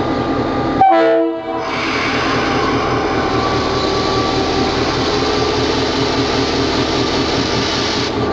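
A short horn blast from the DBR diesel locomotive about a second in, over the steady running of its V8 EMD 645 diesel engine, which gets a little louder and hissier from about two seconds on.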